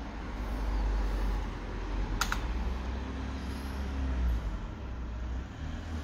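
A computer keyboard key pressed once, a sharp click about two seconds in, over a steady low rumble and hiss.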